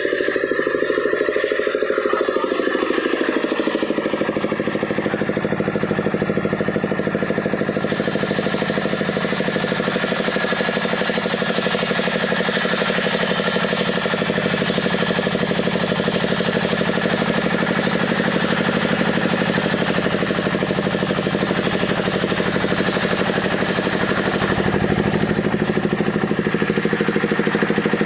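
Engine of a powered wood saw running steadily. About eight seconds in, a harsher hiss joins it.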